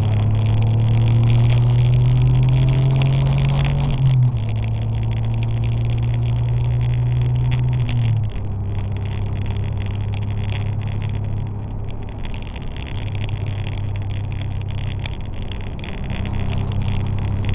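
Porsche 911 (964) air-cooled flat-six under acceleration, its note rising and breaking at two gear changes about four and eight seconds in, then running at a steady pitch.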